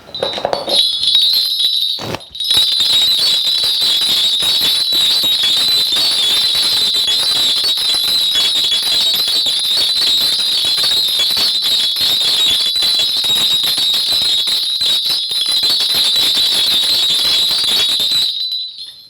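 A cluster of Korean shaman's ritual bells (bangul) shaken continuously in a steady bright jingle, with a brief break about two seconds in, stopping sharply near the end.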